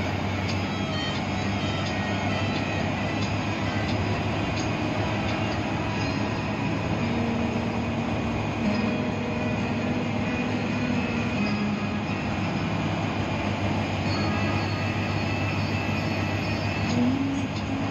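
Cabin noise of an air-conditioned bus on the move: a steady engine drone and road rumble with light rattles. The engine note wavers up and down a few times near the end.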